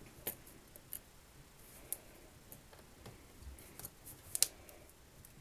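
Small hard objects being handled: about six quiet, sharp clicks and taps scattered apart, the loudest a quick double click about four seconds in.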